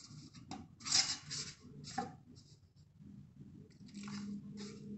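Fingers mixing sorghum flour and water in a stainless steel plate, scraping and rubbing against the metal in short, scratchy strokes as the bhakri dough starts to come together.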